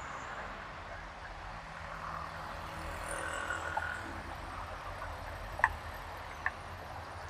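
Street ambience with a car driving slowly past close by, its low engine and tyre rumble swelling and fading. A sharp click comes about five and a half seconds in, and a fainter one about a second later.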